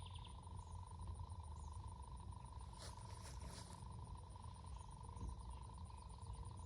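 Insects trilling steadily in the background over a low rumble, with a few brief clicks about three seconds in.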